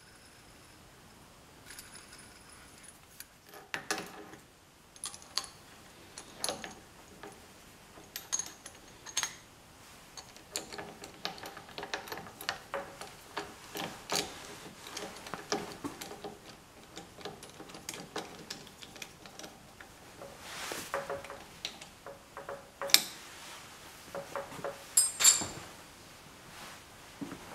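Steel tooling parts, a boring-head holder and its drawbar, handled and fitted into a drill press spindle: irregular light metallic clinks, taps and scrapes, with a few sharper knocks near the end.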